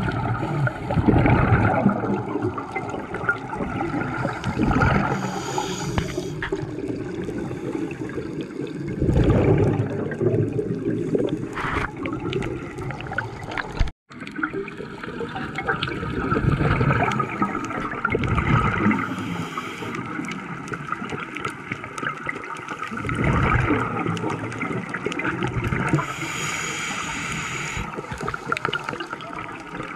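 Scuba breathing heard underwater: a diver's regulator releasing a rush of exhaled bubbles every four seconds or so, with a high hiss now and then between, over a steady underwater hum. The sound cuts out for an instant about halfway through.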